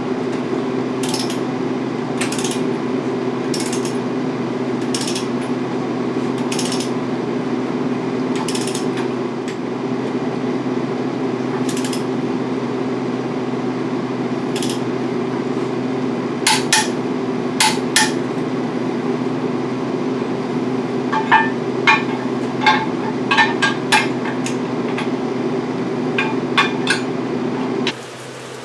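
A torque wrench tightening the upper control arm shaft bolts on a 1963 Chevy C10 front end: single sharp metallic clicks every second or two, then quicker runs of ringing metal clinks later on. A steady hum runs underneath and stops near the end.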